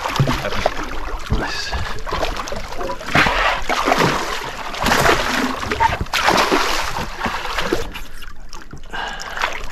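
Water splashing in repeated bursts as a hooked giant trevally thrashes at the surface alongside a boat's hull while it is grabbed by hand.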